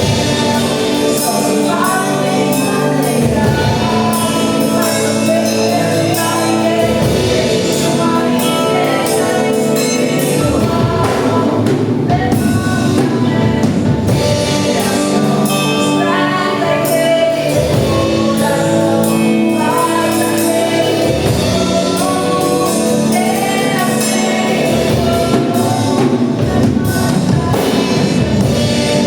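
Gospel worship music: a group of singers with a full band, drums included.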